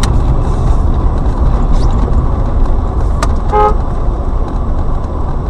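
Car engine and road rumble heard from inside a moving car, with one short car-horn toot about three and a half seconds in.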